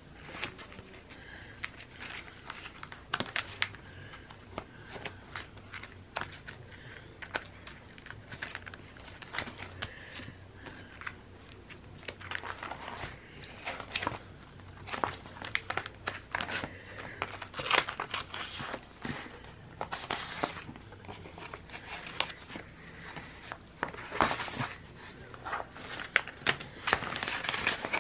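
Clear plastic sleeve pages of a sticker-storage binder crinkling and rustling as they are flipped and sticker sheets are slid in and out, with scattered light clicks. It gets busier and louder in the second half.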